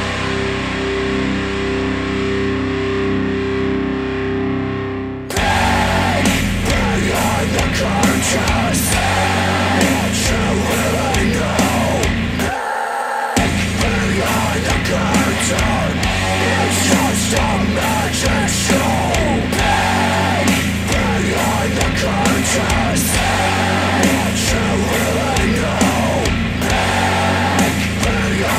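Heavy metal music played through KEF R3 bookshelf speakers driven by a Marantz PM7000N integrated amplifier. About five seconds in it changes abruptly to a denser, louder track with distorted guitar and vocals. Near the middle there is a brief break in the bass and drums.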